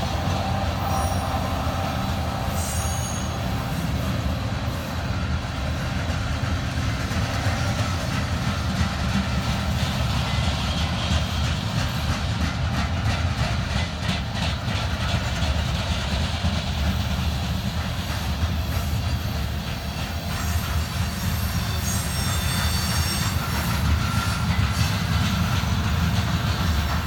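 Coal train rolling past with a steady, loud low rumble of wheels on rail. Brief high-pitched wheel squeals come about a second in, again around three seconds, and a few more near the end.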